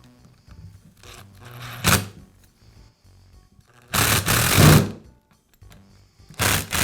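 A small power driver spinning screws in to fasten the cord clamp on a Makita belt sander: a sharp click about two seconds in, then two runs of the driver, about a second each, the second starting near the end.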